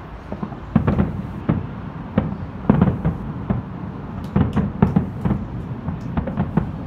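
Aerial fireworks shells bursting in a quick, irregular series of sharp bangs, several a second, densest about two-thirds of the way through.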